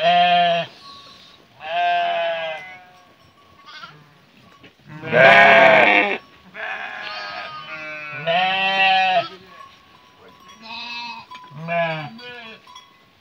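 Sheep bleating, one call after another, about seven wavering bleats in turn with the loudest about five seconds in.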